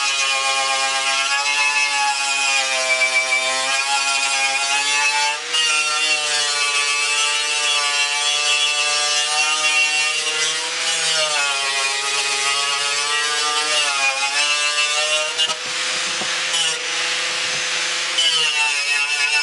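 Electric angle grinder with a wire brush stripping paint and rust off a truck grille ahead of primer. The motor's steady whine dips in pitch each time the brush is pressed onto the metal, with a harsher scraping stretch for a couple of seconds near the end.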